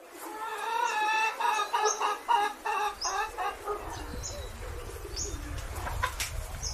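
A rooster crows for about three seconds: one steady call that breaks into quick pulses toward its end. Then a low wind rumble sets in, with short high chirps about once a second.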